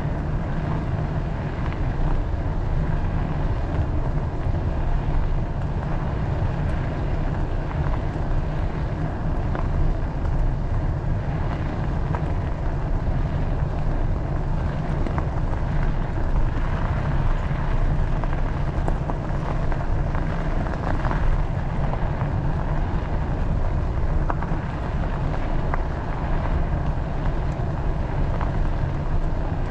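Wind buffeting the microphone of a camera on a moving bicycle: a steady low rumble with a hiss above it.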